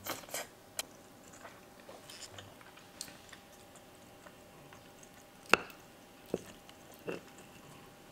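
Wooden chopsticks and a metal spoon clicking and tapping against a wooden plate as sauce-coated food is set down, with soft wet squishes. The clicks are scattered, and the sharpest one comes about five and a half seconds in.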